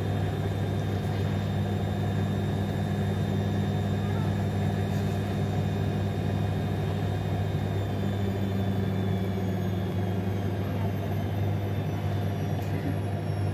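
A steady low machine hum that holds at one pitch and level.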